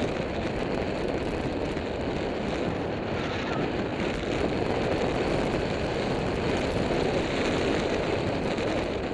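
Steady rush of wind over the microphone from the airflow of a tandem paraglider in gliding flight.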